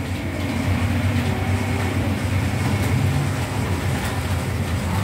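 Model train running on a miniature railway layout: a steady low hum and rumble with no breaks.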